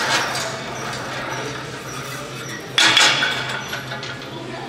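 Gym equipment clattering once, sharply, about three seconds in, over a steady low hum.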